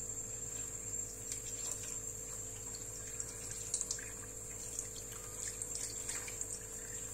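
Faint dripping and light splashing of water with scattered small ticks, over a steady faint high whine.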